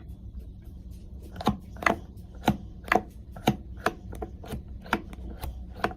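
Moocoo portable espresso maker being pumped by hand to build pressure and push the coffee through, giving a steady run of sharp clicks about twice a second that starts about one and a half seconds in.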